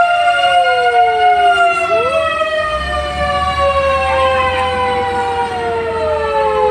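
Several fire-truck sirens wailing at once, their overlapping tones gliding slowly down and then snapping back up at different moments.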